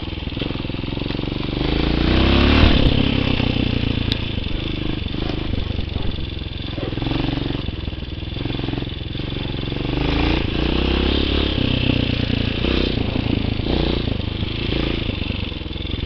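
Tao Motor TBR7 enduro dirt bike engine running while ridden over rough grassy ground. The revs climb and ease off repeatedly, with the strongest rev about two to three seconds in.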